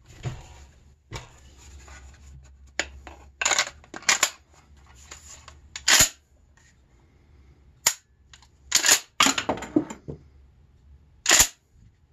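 Sharp metallic clacks and clicks of a Remington 870 DM 12-gauge pump-action shotgun being handled, with its detachable magazine being seated and its pump action worked. About a dozen separate clacks, the loudest about halfway through and near the end.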